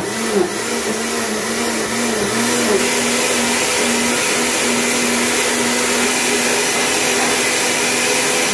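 Countertop blender motor running at speed, liquefying kale, celery and water into a green smoothie: a loud, steady whir with a hum that wavers for the first few seconds and then holds steady, cutting off at the very end.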